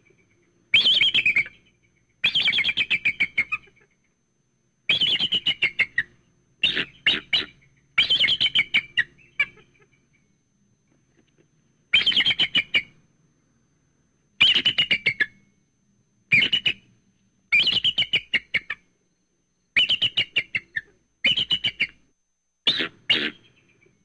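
Bald eagle calling: about a dozen series of rapid, high-pitched piping chirps, each a second or two long and trailing off, separated by short pauses.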